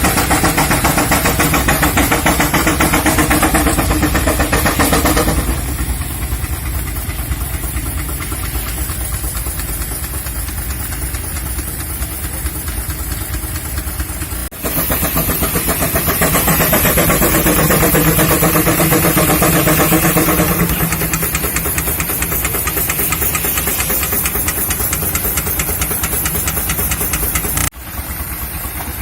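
A 22 hp Keck-Gonnerman engine running a sawmill with a steady, even beat. It grows louder and fuller twice, for about five seconds at the start and for about six seconds midway, as the mill takes load, typical of the saw cutting through a log.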